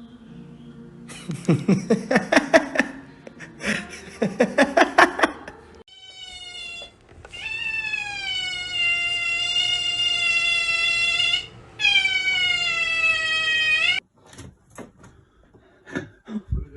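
A cat yowling. It starts with two stretches of quick pulsed cries, then gives long drawn-out wails, each held about four seconds.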